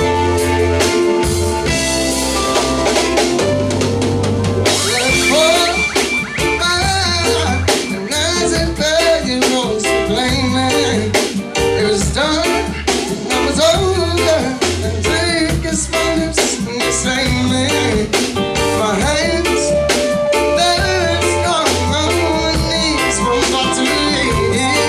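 Live band music with guitar, bass and drums, and a lead vocal coming in about five seconds in.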